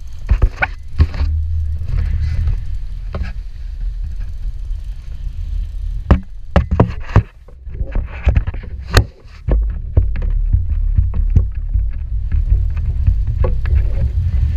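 Heavy low rumble of wind buffeting the microphone on a small fishing boat, broken by sharp knocks and clatter, a few within the first second and a cluster from about six to nine seconds in.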